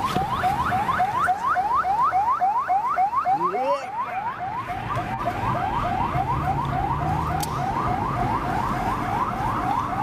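Police car siren on a fast yelp cycle: a loud tone sweeping rapidly upward over and over, about three or four times a second, over low vehicle rumble.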